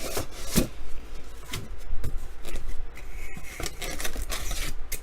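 Hands opening a sealed cardboard trading-card box: irregular scraping, rubbing and small clicks of cardboard and wrapping being torn and handled.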